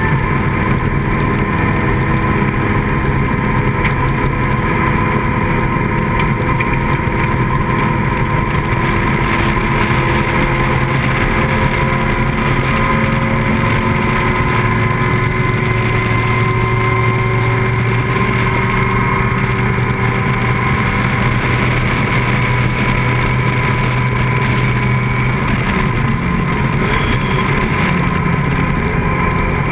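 Racing car engine at speed, heard from the open cockpit. Its note climbs slowly and eases back as the car goes through the corners, loud and unbroken.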